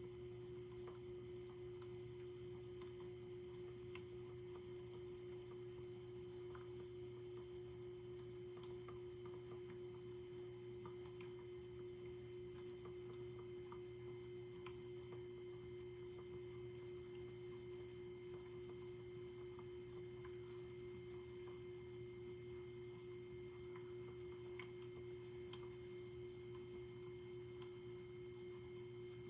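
A faint, steady electrical hum held on one unchanging mid-pitched tone, with a lower hum beneath it.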